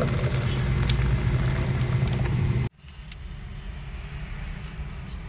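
A car running, heard from inside the cabin: a steady low hum with a hiss over it. It cuts off suddenly about halfway through, leaving a quieter steady hiss.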